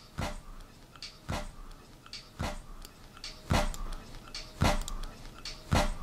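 Faint backing beat bleeding into a soloed rap vocal track between sung lines, heard as evenly spaced drum hits about once a second over a low hiss: headphone or speaker spill picked up by the vocal microphone during recording.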